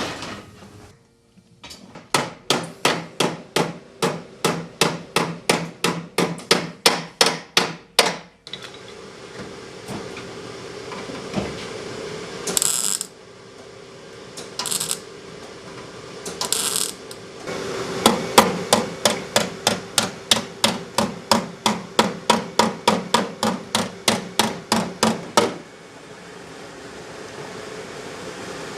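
Two runs of rapid, even hammer blows, about three a second, each going on for several seconds. Two short hissing bursts come between the runs.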